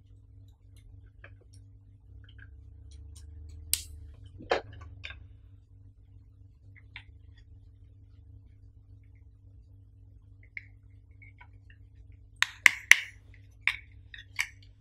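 Hands handling a bundled cable and small plastic parts: scattered light taps and rustles, two louder clicks about four seconds in and a quick run of sharp plastic clicks near the end, over a faint steady low hum.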